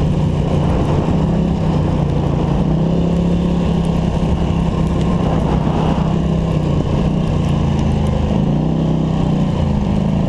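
Polaris Scrambler ATV engine running steadily while under way, its pitch shifting slightly a few times with the throttle.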